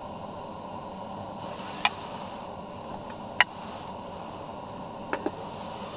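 Sharp metallic clinks: two single ones with a brief high ring, about two and three and a half seconds in, then a quick pair near the end. Under them runs a steady hiss, like that of the shack's portable propane heater.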